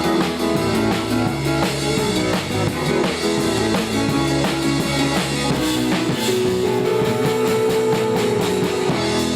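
Rock music with drums and guitar and a steady beat, fading out just after the end.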